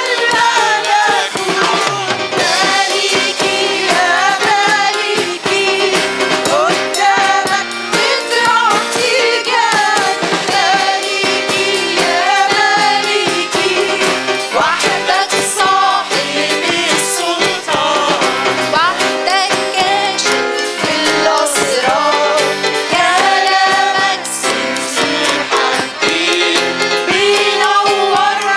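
Arabic Christian worship song: several women singing the melody together into microphones, accompanied by accordion, guitar and electronic keyboard.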